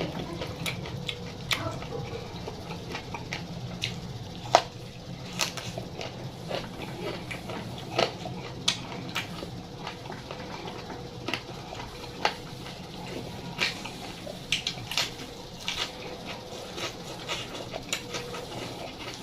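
Close-miked eating sounds: chewing with irregular wet smacks and sharp crunches, some louder than others, over a steady low hum.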